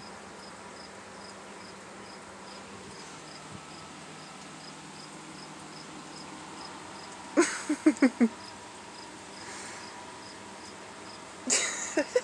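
Insects chirping steadily in the background, a short high chirp about two and a half times a second. About two-thirds of the way through, four quick short voice sounds stand out, and a couple more come near the end.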